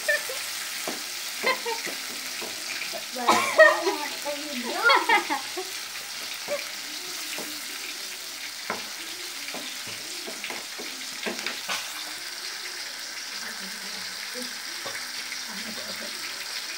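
Sambal sizzling in a frying pan while a wooden spatula stirs it, tapping and scraping the pan in short knocks, over a steady frying hiss. A voice is heard briefly about three to five seconds in.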